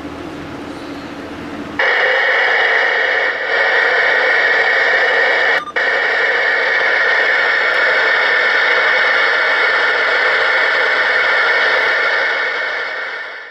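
Uniden PC-687 CB radio's speaker hissing with receiver static. It starts suddenly about two seconds in, holds steady apart from a brief dropout near the six-second mark, and fades out near the end.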